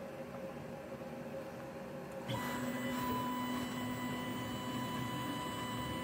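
CNC machine's X-axis stepper motor driving a move, a steady whine that starts abruptly about two seconds in, over a low electrical hum.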